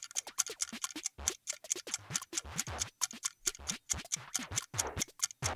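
Countdown timer music: a fast ticking beat with regular low thumps underneath, running while the answer time counts down.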